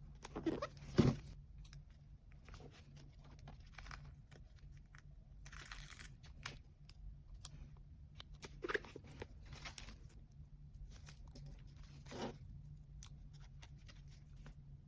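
Paper and sticker sheets handled while making a journal collage: scattered rustling and crinkling with short tearing sounds, and a soft knock about a second in.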